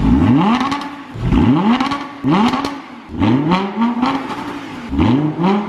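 Audi R8's 5.2-litre V10 revved hard in neutral, about five quick blips of the throttle in a row, each climbing sharply and then dropping back, heard through its existing exhaust before the new titanium valved system is fitted.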